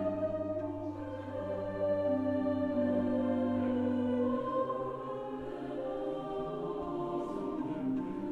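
Slow background music of long held chords with a choir-like sound, the chords changing every few seconds.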